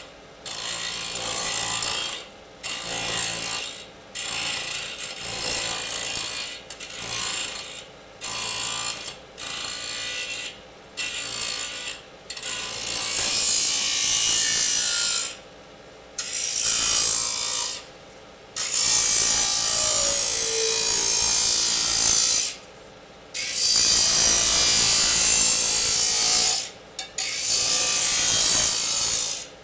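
Disk saw cutting aluminium, a harsh high-pitched rasp of blade on metal. The first dozen seconds bring a quick series of cuts about a second each, followed by longer cuts of two to four seconds with short pauses between.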